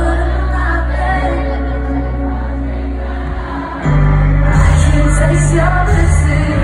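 Live rock-pop band with a lead singer, heard from the audience. About four seconds in, the band comes in fuller and louder.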